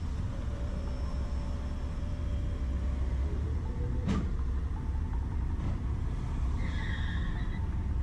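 Steady low road and engine rumble of a car moving in freeway traffic, heard from inside the cabin. There is a single sharp knock about four seconds in, and near the end a brief high-pitched squeal lasting about a second.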